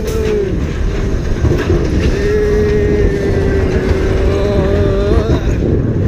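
Roller coaster car running along its track, a loud steady rumble. From about two seconds in, a rider holds one long yell at a steady pitch for about three seconds.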